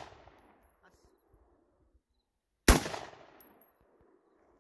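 A single gunshot about two and a half seconds in, its echo dying away over about a second. It follows the fading tail of a shot fired just before, part of slow, aimed single shots.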